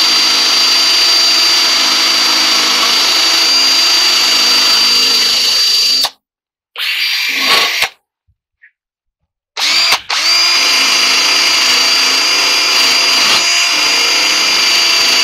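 Cordless drill on its highest speed spinning a wire wheel against the dryer's metal bulkhead rim, scrubbing off old felt and glue, with a steady high whine. It stops about six seconds in, runs again for about a second, falls silent for about two seconds, then starts up again about ten seconds in.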